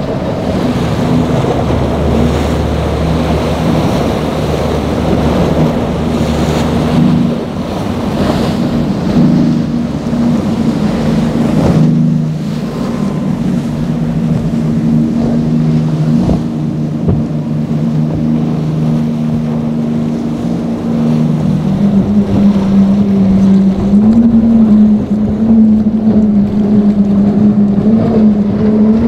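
Outboard engines of fast powerboats running at speed, a steady engine drone over the hiss of spray and wind. The engine note shifts as different boats go by. It grows louder in the last several seconds as a go-fast boat with twin Mercury Racing 400 outboards passes.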